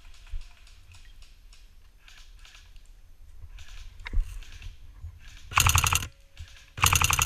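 Airsoft PPSh replica firing two short full-auto bursts about a second apart. Each burst is a rapid, loud rattle lasting about half a second. Before the bursts, footsteps rustle faintly through dry leaf litter.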